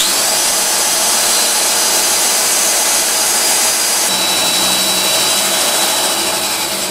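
Cordless drill running steadily at speed while driving the chuck of an Atlas 12-inch lathe, turning the spindle and gear train by hand power as a first test of the rebuilt machine. About four seconds in the sound shifts and a steady high whine comes in.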